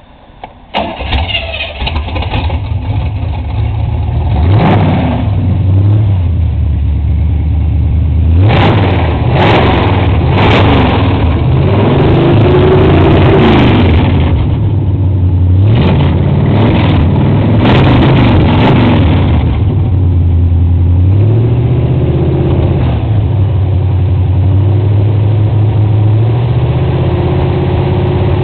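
Chevrolet 350 small-block V8 breathing through open headers, with a Holley four-barrel carburettor, starting about a second in on its first start after two years of sitting. It is then revved up and down several times before it settles into a steady idle near the end.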